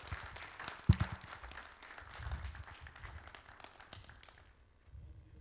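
Congregation clapping, dying away about four and a half seconds in, with a single low thump about a second in.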